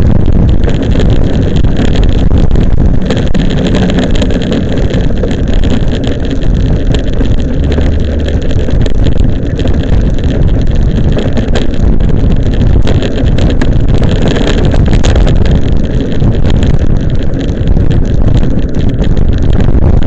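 Loud, steady wind rumble buffeting the microphone of a bicycle-mounted camera while riding.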